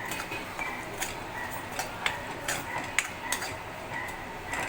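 A spoon stirring and scraping in a metal kadhai, knocking against the pan in short irregular clicks about twice a second, as ginger paste with jaggery cooks.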